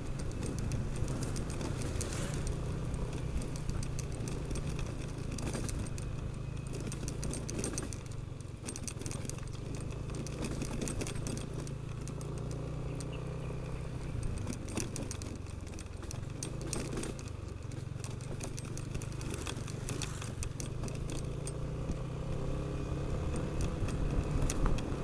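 Yamaha NMAX scooter's single-cylinder engine running steadily while riding, with frequent small clicks and rattles over it.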